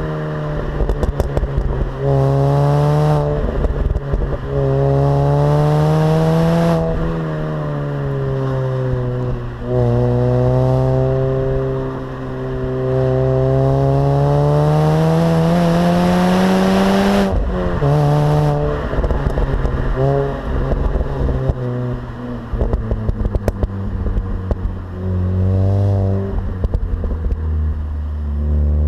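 Mini Cooper S R53's supercharged 1.6-litre four-cylinder engine with its stock exhaust, pulling up through the revs several times. The pitch climbs over a few seconds and then breaks off or drops at each shift or lift. It rises and falls more slowly in the middle and settles to a lower, steady note near the end.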